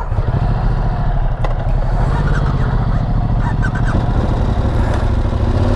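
Motorcycle engine running steadily at low speed as the bike rolls slowly along, a constant low drone.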